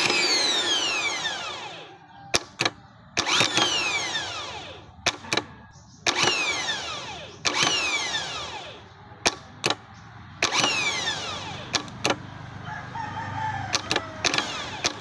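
A car starter motor, bench-tested on a battery, is run four times. Each time it spins up and then its whine falls away as it winds down over about two seconds, with sharp clicks between the runs. It spins freely each time while being checked for an intermittent failure to turn.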